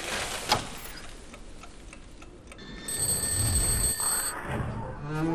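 Sound-effect ticking and clicking with one sharp click, then, about three seconds in, a high steady ringing like an alarm clock that lasts about a second and a half over a low rumble.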